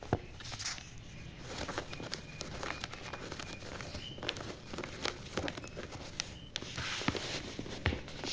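Scattered light taps and rustling, like footsteps, with a few faint short high tones in the middle.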